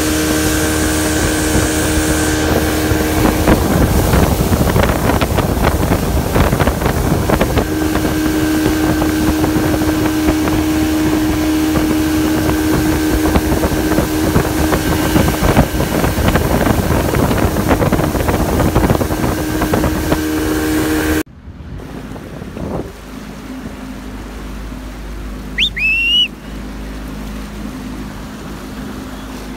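Motorboat running at speed, heard from on board: a steady engine drone mixed with wind and the rush of water from the wake. About two-thirds through it cuts off suddenly to a quieter engine hum from a boat cruising slowly past, with a brief high chirp near the end.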